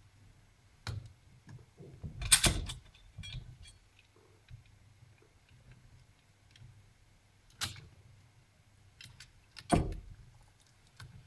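Small clicks, ticks and scrapes of hands working inside an opened netbook, peeling tape and handling ribbon-cable connectors. A louder cluster of scraping clicks comes about two seconds in, and sharp single clicks come near eight and ten seconds.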